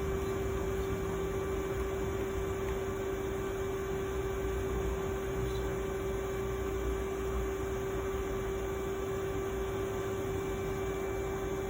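Steady electrical hum of a powered-up CNC milling machine: one clear, unchanging mid-pitched tone over a low rumble.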